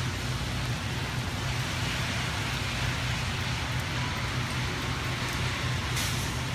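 Steady rain hiss, even and unbroken, with a low rumble beneath it and a sharp drop tick near the end.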